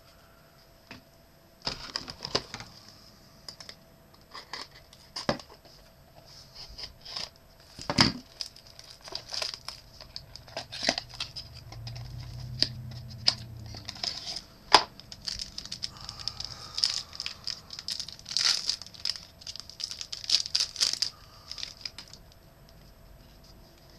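A trading-card pack's wrapper being torn open and crinkled, an irregular run of sharp crackles and rips from about two seconds in until near the end.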